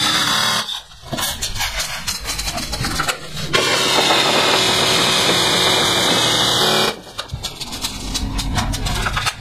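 G&G CM16 Carbine electric airsoft rifle firing full-auto in a fast, continuous stream, played back at double speed. It stops about a second in, leaving a few sharp clicks of a magazine change, fires again from about three and a half to seven seconds in as a fresh 120-round magazine empties, then stops again for another magazine change with clicks.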